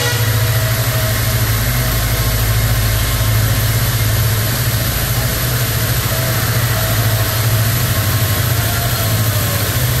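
Passenger train running along the track, heard from on board: a steady low hum and rumble with an even rushing noise of wheels on rails.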